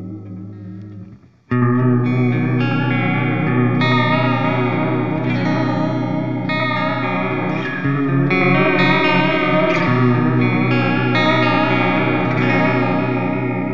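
Clean electric guitar chords through an EarthQuaker Devices Space Spiral modulated delay pedal, into the clean channel of a Randall Satan amp. The pitch wobbles steadily from the modulation, and the repeats trail off behind the notes. A ringing chord fades out about a second in, a new chord is struck just after, and the chords change again near the middle.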